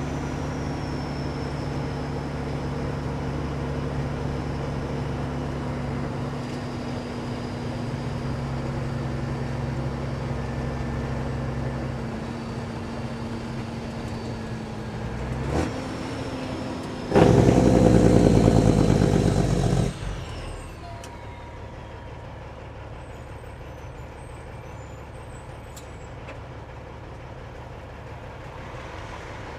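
Kenworth W900 truck's diesel engine running steadily through loud exhaust pipes. About seventeen seconds in there is a much louder blast lasting about three seconds, and after it the truck runs noticeably quieter.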